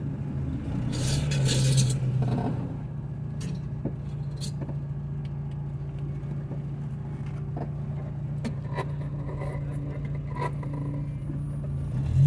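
Volkswagen Saveiro pickup's engine idling steadily, heard from inside the cab, swelling briefly about a second in, with a few light clicks.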